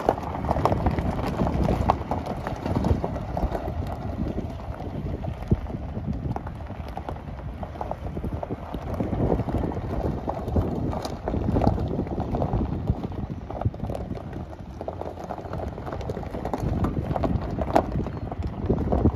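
Footsteps crunching on loose gravel in an irregular walking rhythm.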